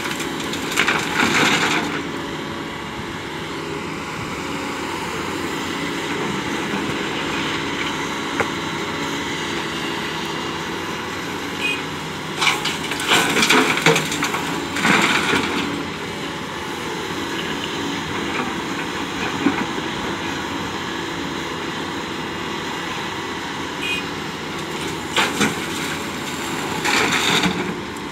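Doosan DX225 excavator's diesel engine running steadily under load, with three loud rushes of sand and gravel being dumped from the bucket into a tipper truck's steel body, roughly every twelve seconds: near the start, about halfway, and near the end.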